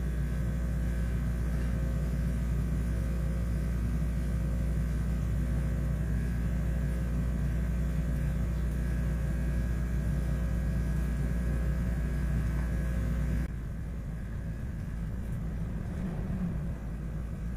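Steady low mechanical hum and rumble made of several fixed tones, which drops off abruptly about thirteen seconds in, leaving a quieter hum.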